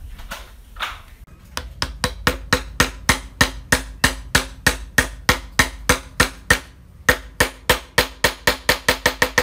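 Hammer blows on wood struck in a steady, even rhythm of about three to four a second, with a short pause about two-thirds of the way through and quickening near the end.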